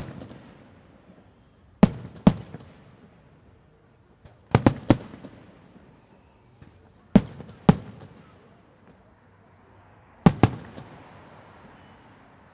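Fireworks going off: sharp bangs in close pairs about every two and a half seconds, each followed by a fading echo.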